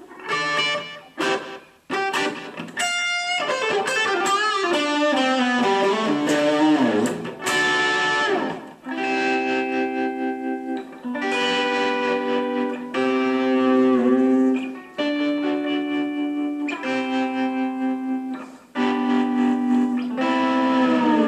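Instrumental guitar music with no singing: quick picked notes at first, then a long downward slide in pitch with vibrato from about four to eight seconds in, followed by sustained chords broken by brief pauses.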